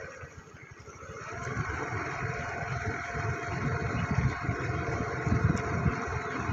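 A vehicle engine running low and steady, with wind rumbling and buffeting the microphone in uneven low thumps. It dips for about the first second, then grows louder.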